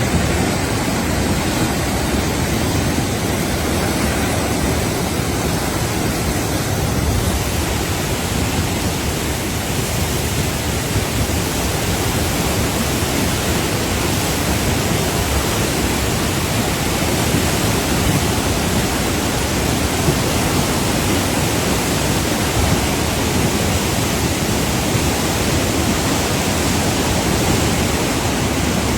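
Fast floodwater rushing in a steady, unbroken torrent.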